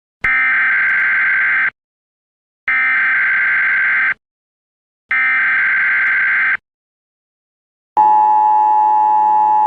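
Emergency Alert System SAME header: three bursts of buzzing data tones, each about a second and a half long with a second's gap between them. After a pause of about a second and a half, the steady two-tone EAS attention signal starts and holds.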